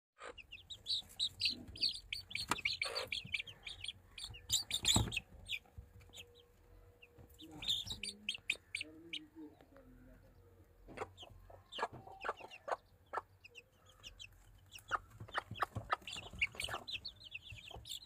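Young Aseel chickens chirping and clucking in bouts of short high calls, with scattered sharp knocks and taps, the loudest about five seconds in.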